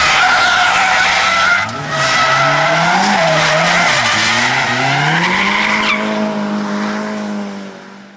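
Drift car sliding with its tyres squealing, the engine revving up and down and then holding steady revs. The sound fades out near the end.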